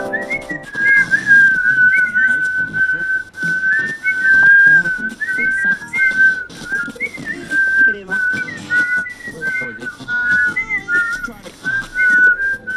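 A whistled tune: a bright melody dwelling mostly on one note with quick upward flicks, running as a light cue, with frequent small clicks beneath it.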